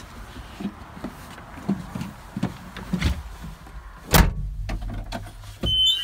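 Knocks and clunks of someone climbing into a Bobcat S570 skid steer's cab, with a heavy thump about four seconds in as the cab door is shut. Just before the end a steady high electronic beep starts from the machine's panel.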